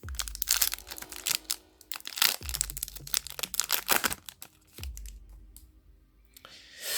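A foil booster pack wrapper crinkling and tearing open, with cards being handled, in bursts of crackling that die down in the last couple of seconds.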